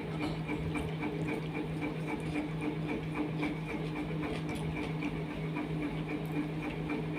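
A steady mechanical hum that pulses evenly, about two to three beats a second, like a small motor running. Under it are faint soft ticks from fingers mixing rice on a steel plate and from eating.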